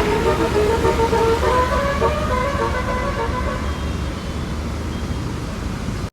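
Bus telolet horn (a basuri-type multi-tone electric horn) playing a tune, stepping from note to note and fading away over the last few seconds, over the low rumble of vehicle engines and traffic.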